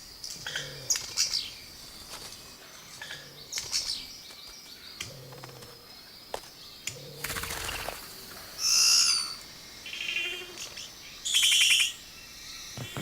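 Male Vogelkop bowerbird singing his courtship display song, a varied string of calls that mixes in mimicry: low hoot-like notes, clicks and short whistles, with two loud harsh calls about 8 and 11 seconds in.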